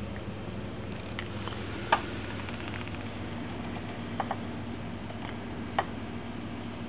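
A few sharp, light clicks and taps from a cat moving on top of cardboard boxes: the loudest about two seconds in, a quick pair a little after four seconds, and one more near six seconds. A steady low hum runs underneath.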